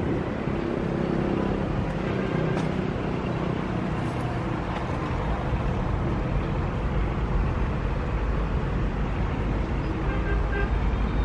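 Steady road-traffic noise: a constant low rumble with faint engine hum, unbroken and without any single loud event.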